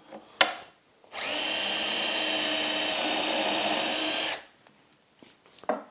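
Cordless drill boring a handle hole through a veneered MDF drawer front: a click, then the drill runs at a steady, even pitch for about three seconds and stops.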